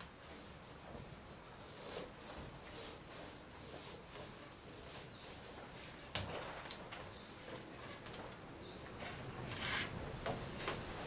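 Paint being rolled onto a fibreglass canoe hull and then tipped off with a dry brush: a run of short, repeated rubbing strokes, with one sharp knock about six seconds in.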